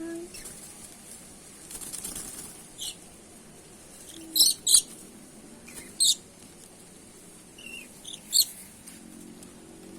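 A lory (nuri) giving about five short, shrill, high-pitched calls at irregular intervals, the loudest in the middle.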